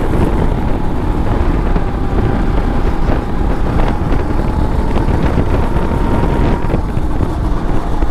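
Kart engine running hard, heard onboard over heavy wind rush on the microphone, with a thin steady whine.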